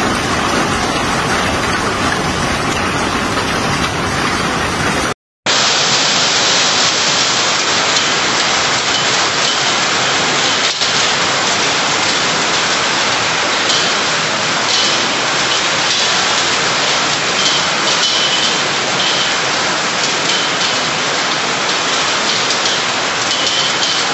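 Hailstorm with heavy rain: hailstones and rain pelting down as a loud, dense, steady noise. The sound cuts out for a moment about five seconds in, then carries on just as steadily.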